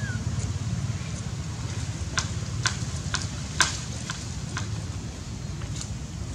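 Macaque lapping and slurping milk from a plate: a run of short sharp clicks, about two a second through the middle, over a steady low rumble.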